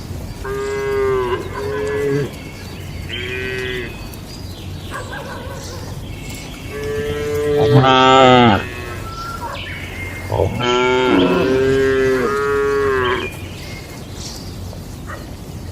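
Cattle mooing, with several drawn-out calls one after another. The loudest call comes about eight seconds in, and a longer one runs from about ten and a half to thirteen seconds.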